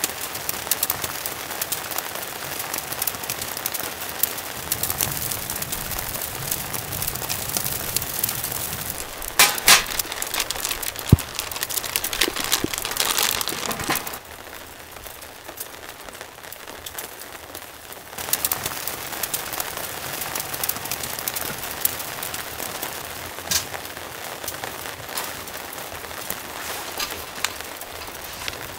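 Steady rain pattering on a cotton tent, dense with the ticks of single drops. There are a few louder knocks about ten seconds in, and the rain goes quieter for a few seconds around the middle. Now and then the tent fabric rustles.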